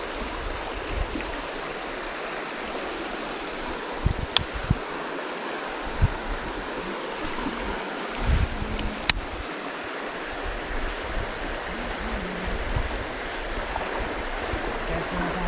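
River water running steadily in a riffle, an even rushing hiss, with a few low thumps of wind or handling on the microphone and a couple of faint sharp clicks.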